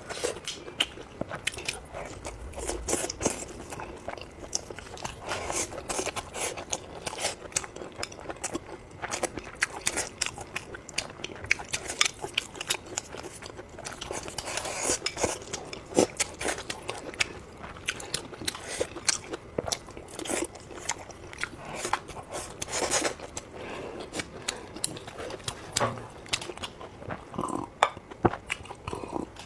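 A person eating close to the microphone, biting and chewing food with crunchy, wet mouth sounds and many sharp clicks and smacks.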